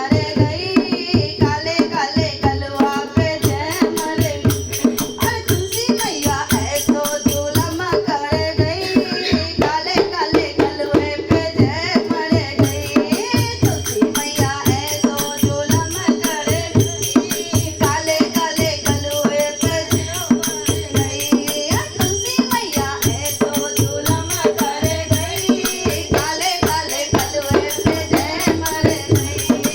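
Music of a Hindi devotional bhajan: a hand drum keeping a steady beat with jingling percussion under a wavering melody.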